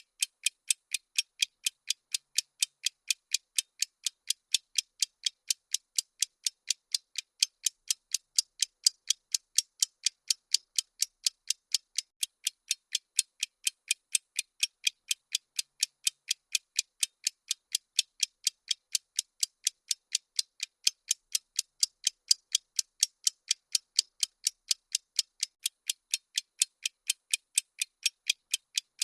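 Bomb countdown timer ticking sound effect: sharp, high, evenly spaced ticks, about three a second, with silence between them.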